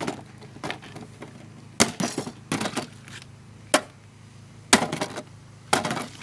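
A 2-pound hammer striking a cheap coffee machine: a series of hard, irregularly spaced blows, about one a second.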